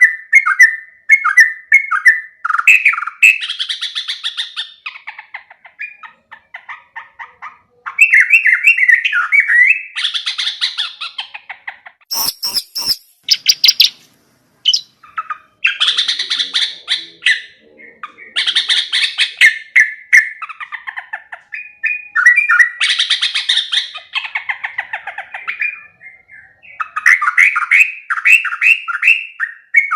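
Yellow-vented bulbul (trucukan) singing: repeated bursts of quick, bubbly chattering phrases, one after another with short pauses between. A brief cluster of sharp clicks comes about twelve seconds in.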